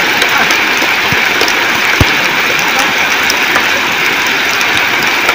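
Steady, loud rushing noise like rain or running water, with one dull low thump about two seconds in.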